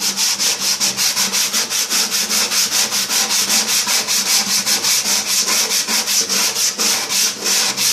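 Sandpaper rubbed by hand in quick back-and-forth strokes, about six a second, over the rusted, painted steel interior of a microwave oven's cavity, scouring off rust and peeling paint.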